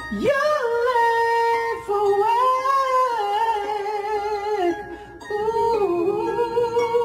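A man singing wordlessly into a karaoke microphone through a small speaker, long loud held notes in a high voice that slide up and down, with short breaks for breath.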